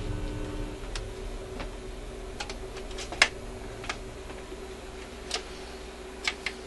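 Symphonic record player switched on, with a 45 rpm record on the turntable: a steady hum under scattered sharp mechanical clicks and ticks from the tonearm and changer mechanism being handled, the loudest about three seconds in.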